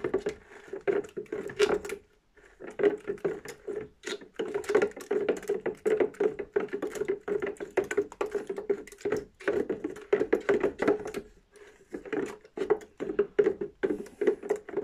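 Small wooden spoon stirring a copper sulfate and lime slurry in a ribbed plastic container. It knocks and scrapes against the plastic walls in quick, irregular strokes, with a few short pauses.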